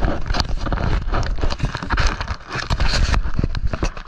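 Handling noise on the action camera's microphone: a hand gripping and adjusting the GoPro and its mount, making irregular close knocks and rubbing several times a second over a low rumble.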